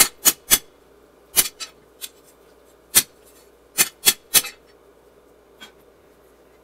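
Ball-peen hammer striking steel on an anvil: about ten sharp metallic blows in quick groups of two or three, the last one faint.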